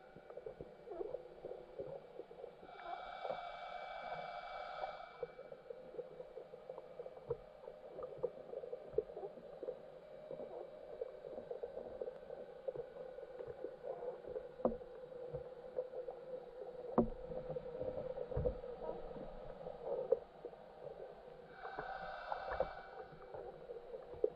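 Underwater sound of a lake picked up by a submerged camera: a steady hum with constant fine crackling and clicks. Twice, about three seconds in and again near the end, a whining tone with several overtones lasts a second or two.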